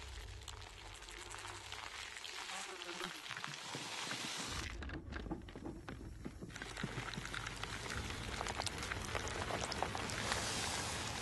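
Dense crackling, pattering noise full of small clicks, like rain on a surface, over a low hum. The high hiss thins out for over a second about five seconds in.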